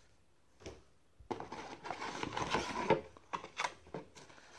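Hands rummaging in a cardboard camera box, rustling the packing paper and handling the contents, with several sharp knocks of cardboard near the end. A single tap comes before the rustling starts, about a second in.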